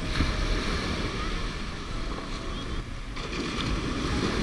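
Surf breaking and washing up on a gravel beach, a steady rush of water, with wind rumbling on the microphone.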